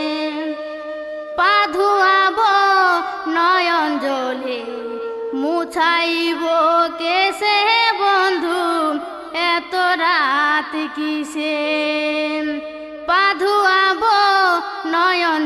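Purulia jhumur folk song: a melody of quavering, ornamented notes over a steady held drone.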